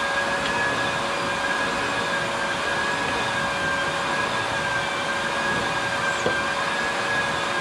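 A small electric motor running steadily: a constant whine over an even rush of air, with no change in speed.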